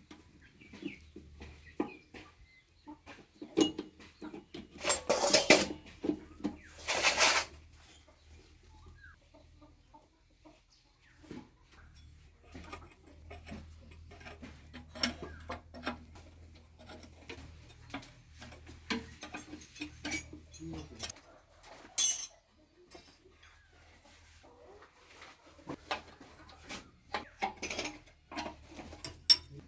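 Scattered metallic clinks and taps of tools and hydraulic pump parts being handled, with two longer rattling bursts about five and seven seconds in and a sharp knock about 22 seconds in. A low steady hum runs underneath and drops out for a few seconds past the middle.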